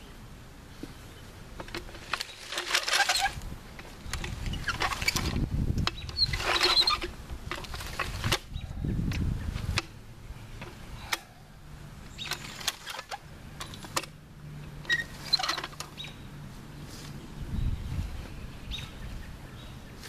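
Metal floor jack and its long handle being set down and positioned: repeated clanks, rattles and scraping in separate bursts, with sharp clicks in between.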